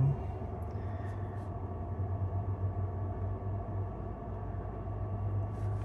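Steady low hum of a parked Tesla Model S Plaid's cooling system (fans and pumps) running after Track Mode is switched on.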